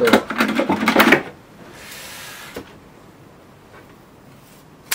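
Small items clattering on a shelf as they are rummaged and picked up, a brief rustle of fabric and cord, and near the end one sharp snip of scissors cutting a cord.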